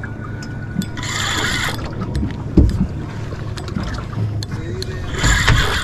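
Sounds aboard a small boat on the water: a steady low rumble with wind on the microphone, a few light clicks, and two short hissing bursts, one about a second in and one near the end.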